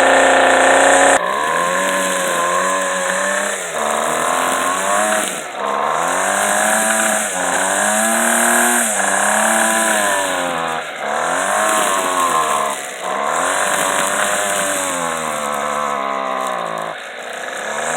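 Two-stroke weed eater engine running at high speed, then revved up and down again and again with short dips between the revs. It runs with new gaskets and a freshly cleaned exhaust screen, though a bit of dirt is still stuck in its carburetor.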